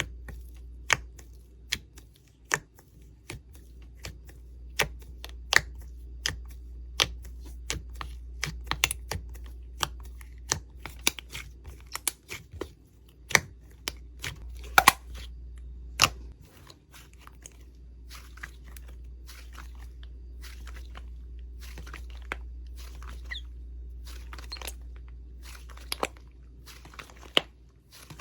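Slime being squeezed and worked by hand, giving an irregular run of sharp clicks and crackling pops, several a second in places. A low steady hum underneath stops partway through.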